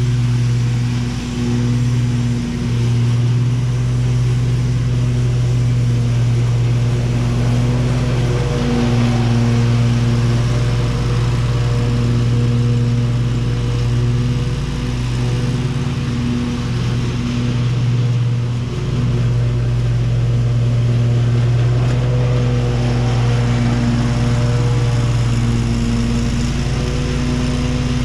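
Riding lawn mower's engine running steadily while mowing, a continuous low hum whose upper tones fade and return a few times as the mower moves across the lawn.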